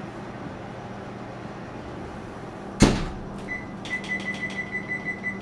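Oven door swung shut with a single sharp bang about three seconds in, over a steady low hum. After it comes a quick run of light clicks with a faint high tone.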